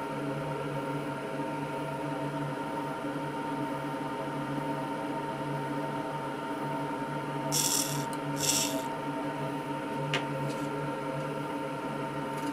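Steady machine-like hum throughout, with two short scratchy hisses in quick succession a little past halfway and a faint click about two seconds before the end.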